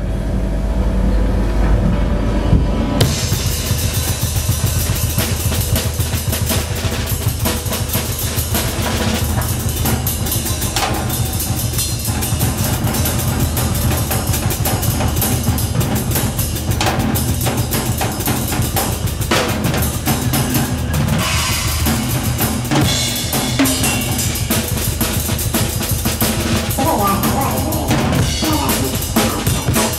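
A low bass drone, then about three seconds in a live drum kit comes in, playing fast, dense strokes on snare, bass drum and cymbals over a steady low bass line.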